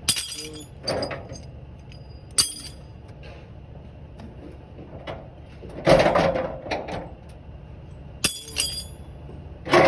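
Metal clanks and rattles of tie-down chains and load binders being handled, several sharp ringing strikes spread through, the loudest cluster about six seconds in.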